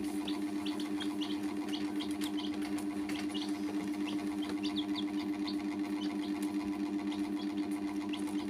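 Baby chicks peeping: many short, high peeps scattered through, over a steady low hum that pulses quickly and evenly.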